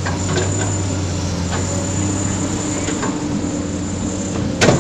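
Komatsu PC200 excavator's six-cylinder diesel engine running steadily under hydraulic load as the machine swings, with a few faint clicks and one loud, sharp knock about four and a half seconds in.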